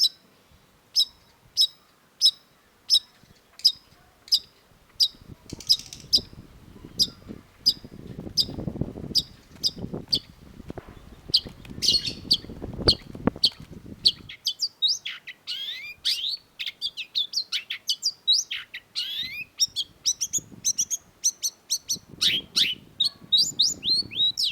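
Long-tailed shrike calling: one sharp, high note repeated about every half second, breaking about two-thirds in into a fast, varied song of downward-sweeping notes.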